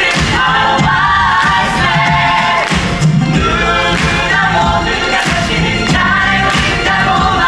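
Live musical-theatre singing by several voices over a band with a steady bass and beat.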